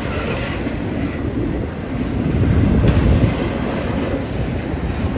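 Intermodal freight train's container cars rolling past, a loud, steady rumble of wheels on the rails.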